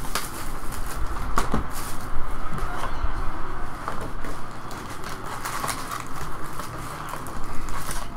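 Hands handling a cardboard trading-card box and its packs: scattered light clicks, taps and rustles over steady background noise.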